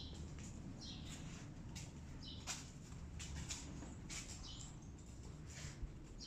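Short, high-pitched animal chirps, one every second or so, with light taps and clicks between them.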